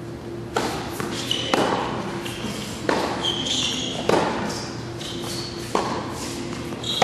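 Tennis rally on an indoor hard court: about six sharp racket-on-ball strikes and ball bounces, roughly one every second or so, with short high squeaks of tennis shoes on the court between them, echoing in a large hall.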